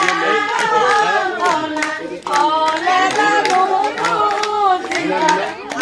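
Singing accompanied by rhythmic hand-clapping, about three claps a second, for dancing; the singing breaks briefly a little over two seconds in.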